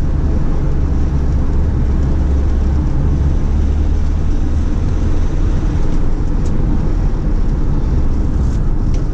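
Mercedes Sprinter 310 diesel van heard from inside the cab while driving on the road: a steady low engine drone mixed with tyre and wind noise, holding an even level throughout.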